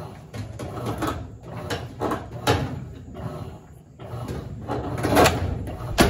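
Irregular knocks and clatter of things being handled, several sharp ones with the loudest about five seconds in, over a steady low hum.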